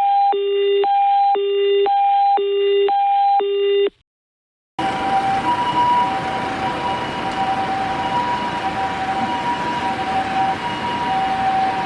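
A clean electronic tone that alternates high and low, about a half-second each, four times over, then cuts off. After about a second of silence, an ambulance's electronic two-tone siren sounds steadily over traffic and road noise.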